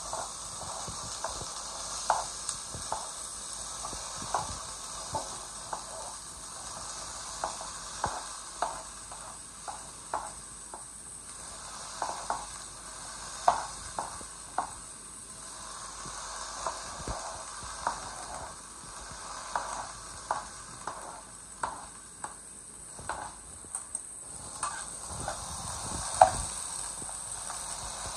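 Chopped vegetables sizzling in a metal frying pan on a gas burner, with a metal spoon clinking and scraping irregularly against the pan and cutting board as the pieces are pushed in and stirred.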